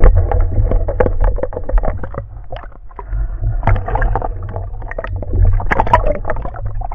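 Muffled water noise as picked up by an underwater camera: a heavy deep rumble with many small clicks and crackles, starting suddenly.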